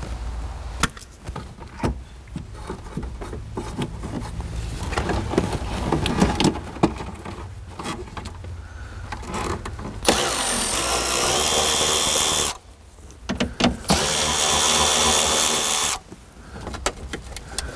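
Cordless Milwaukee ratchet motor running in two steady bursts of about two seconds each, backing out dash fasteners, after several seconds of clicking and rustling as plastic dash trim is handled.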